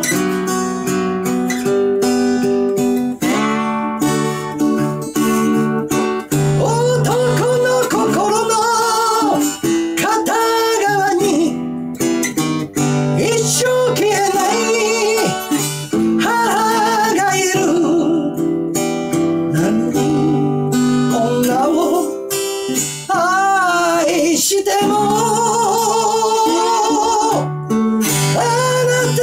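Acoustic guitar strummed and picked, with a man singing a Japanese song over it with a wavering vibrato; the voice comes in about eight seconds in, over guitar alone at first.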